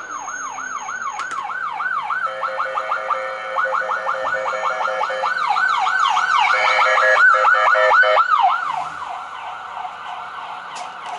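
Ambulance siren in a fast yelp, rising and falling about three times a second and growing louder as it approaches. A steady horn tone sounds over it in two long blasts. The siren stops a couple of seconds before the end.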